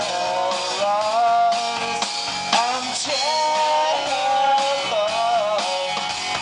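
A live rock trio playing: electric guitar and bass over a drum kit with cymbal hits. The lead line holds long notes and bends them up and down.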